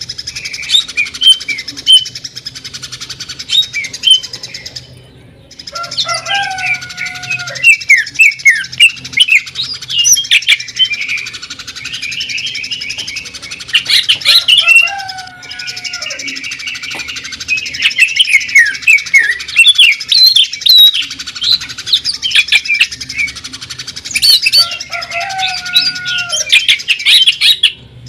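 Greater green leafbird (cucak ijo) singing a loud, fast, varied song of chirps and trills, broken by rapid rattling runs that mimic a sewing machine. A lower sliding whistle comes back about every ten seconds.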